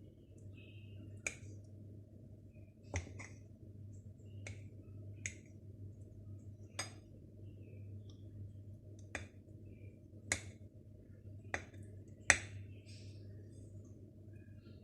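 About ten sharp, irregular clicks of a utensil tapping against a dish, the loudest near the end, over a low steady hum.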